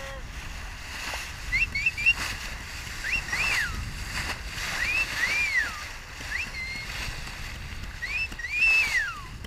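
A person whistling a string of short rising, arching and falling notes to call to dolphins swimming alongside, over steady wind and water noise on the boat.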